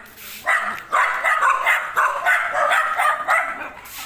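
Dog barking in quick repeated barks, about three a second, starting about half a second in.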